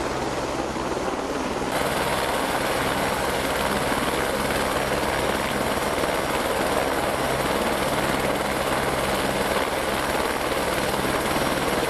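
Helicopter engine and rotor running steadily, with the helicopter sitting on the ground.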